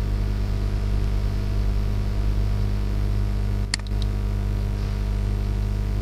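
Steady electrical mains hum and hiss from the recording microphone, with one short click about three and a half seconds in.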